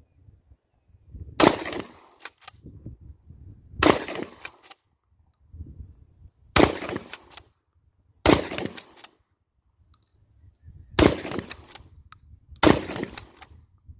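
Dickinson pump-action shotgun fired six times, a shot every two to three seconds, each shot followed by a short clack-clack of the pump being worked to chamber the next shell.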